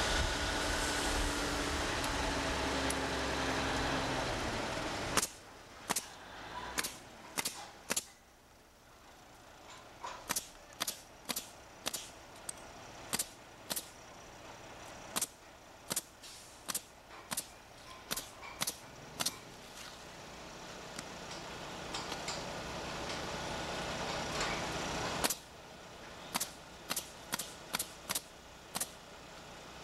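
A steady engine hum for the first few seconds. Then a pneumatic roofing nailer fires sharp shots one after another, about one or two a second, as asphalt shingles are nailed down. The shots pause for a few seconds and then start again near the end.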